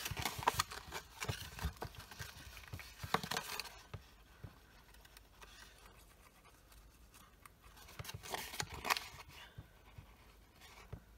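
Patterned designer paper rustling and crackling as a small folded paper box is handled and pressed into shape by hand. It quiets after about four seconds, with a brief rustle of paper near the end.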